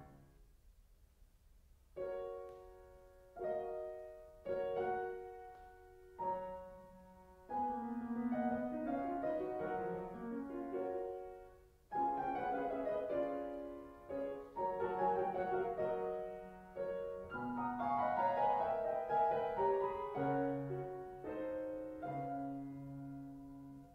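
Grand piano playing the accompaniment of an opera aria alone, between the singer's phrases. After about two seconds of quiet come single chords a second or so apart, then flowing runs with falling figures, and near the end separate chords again.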